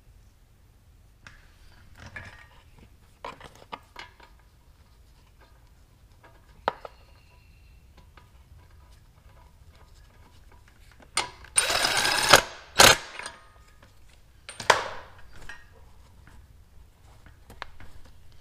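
A ratchet turning a spark plug socket on an extension to run in and tighten a new spark plug on a Honda GC160 engine. A burst of rapid ratchet clicking comes about twelve seconds in, followed by two sharp clicks. Before it, a few faint knocks and clicks come from the plug and socket being handled.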